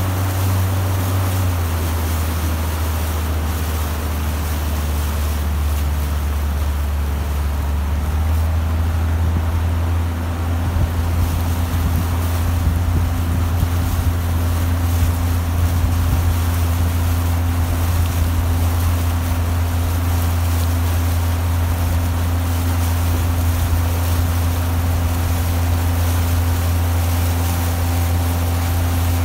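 Outboard boat motor running steadily at low cruising speed, a loud low drone, with the wash of water and a little wind on the microphone.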